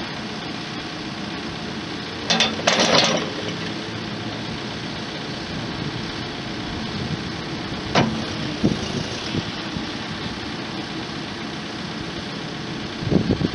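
Diesel engine of a Case 580 Super N loader backhoe idling steadily. A short burst of louder noise comes a couple of seconds in, and a single sharp knock about eight seconds in.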